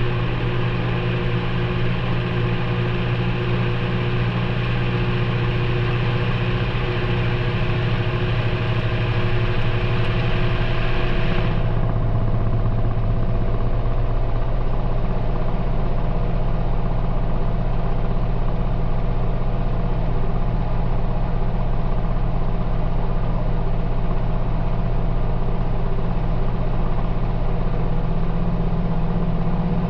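Maytag front-loading washing machine running, heard from inside the drum: a loud, steady motor hum with a layer of hiss. About a third of the way in, the hiss cuts off and the hum shifts in pitch, then runs on steadily.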